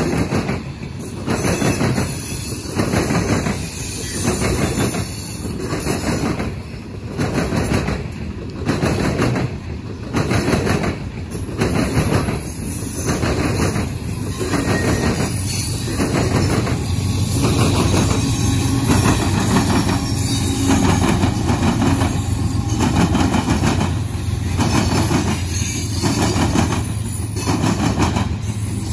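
Loaded coal hopper cars rolling past, their wheels clacking over the rail joints about once a second. The rhythm gives way to a steadier low rumble about halfway through.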